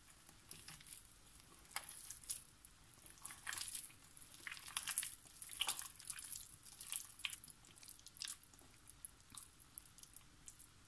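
A bare hand squeezing and mixing soft margarine, oil, egg and powdered sugar in a glass bowl: irregular wet squelches and crackles, busiest in the middle.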